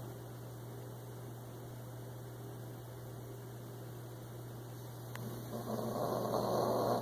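A sleeping pet snoring: a quiet pause between breaths over a steady low hum, then one drawn-out snore starting about three-quarters of the way through and lasting about a second and a half. A faint click comes just before the snore.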